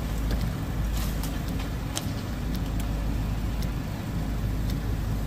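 Hyundai tracked excavator's diesel engine running with a steady low drone while it handles demolition rubble, with scattered sharp knocks and clatters of debris.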